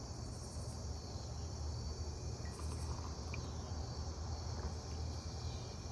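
Chorus of crickets and katydids: a steady high trill, with a short pulsing rasp breaking in near the start and again about halfway through. A steady low hum runs underneath.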